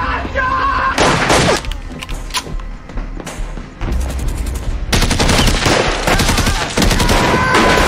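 Gunfire in a staged shootout from handguns and rifles: a few separate shots, then from about five seconds in a dense run of rapid shots, over background music.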